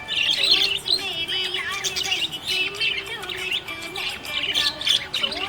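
Budgerigar chirping and chattering in quick, continuous warbling runs, over background music.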